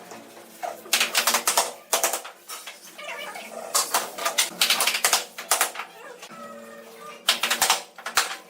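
Hand tools knocking on bamboo in three quick runs of sharp taps.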